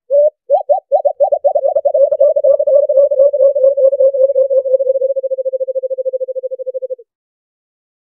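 White-eared brown dove calling: a single low coo, then a run of coos that speeds up into a rapid series, dropping slightly in pitch and fading before it stops about seven seconds in. It is a recorded call played as a lure.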